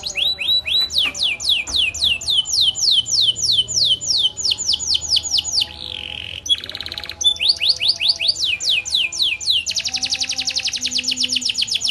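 Canary singing a long, unbroken song of rapid down-sweeping trilled notes, about five a second. About six seconds in comes a short harsh, buzzy phrase, and near the end the notes quicken into a fast roll.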